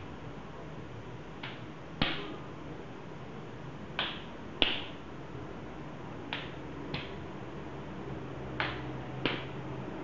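Open-hand slaps on the face, sharp cracks coming in pairs, eight in all, with about two seconds between pairs.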